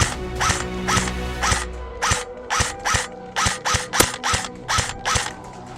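Airsoft gun firing a rapid string of single shots, about a dozen sharp cracks a few tenths of a second apart, over background music.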